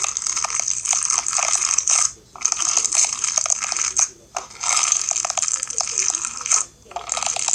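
Fishbowl slime, clear slime packed with small plastic fishbowl beads, being squeezed and kneaded by hand: a dense, crunchy crackle of beads and wet slime pops. It comes in three stretches, with short pauses about two seconds in, about four seconds in and just before seven seconds.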